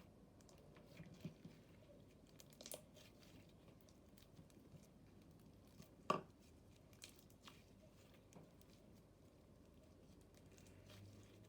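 Slime with foam beads in it being squished and kneaded by hand, making faint, scattered crackles and pops, with one louder pop about six seconds in.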